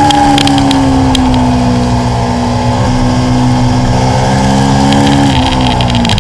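Stock Aprilia Tuono V4's V4 engine heard from on board at track speed, its note falling slowly over the first two seconds, then holding roughly steady through a corner, with a quick dip and recovery in pitch near the end.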